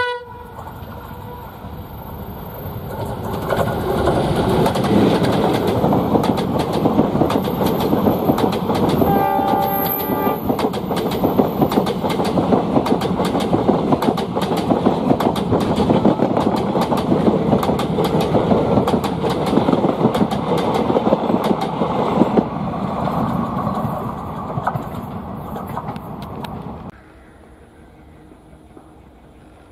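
Indian Railways train hauled by an ALCO diesel locomotive passing close by, its wheels clattering rapidly over the rail joints, with a short horn blast about ten seconds in. The sound builds over the first few seconds and drops away abruptly a few seconds before the end.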